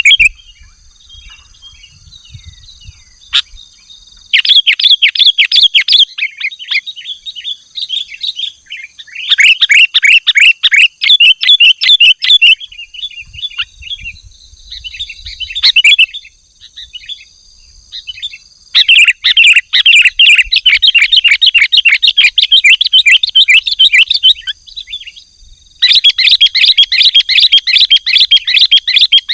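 Sooty-headed bulbul (kutilang) singing loudly in bouts of rapid, repeated chirps, each bout lasting a second to several seconds, with short pauses between. A faint, steady high tone runs underneath.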